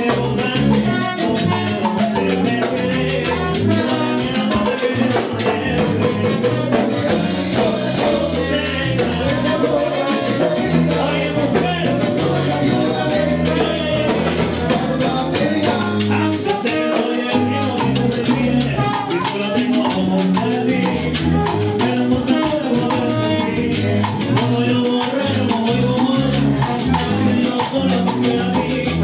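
Salsa band playing, with drums and percussion keeping a steady beat over a moving bass line.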